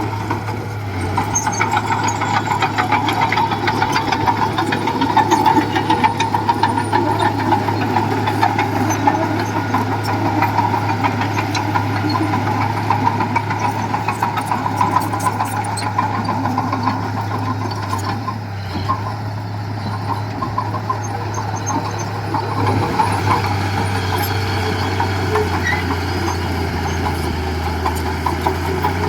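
Diesel engine of heavy earthmoving machinery running steadily under work, with a low hum and a fine rapid clatter.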